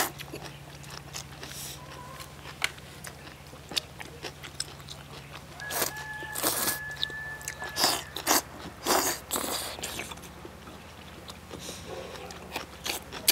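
A person eating lamb rice noodles in broth: several loud slurps as mouthfuls of noodles are sucked in, with quieter chewing between.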